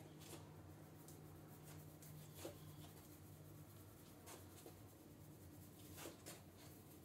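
Near silence: a low steady room hum with a few faint scattered taps and light scratching from hands working at the workbench.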